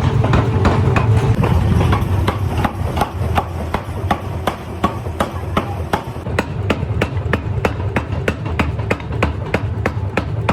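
Mechanical forging hammer striking hot metal in a rapid steady rhythm of about four blows a second, over the low rumble of factory machinery.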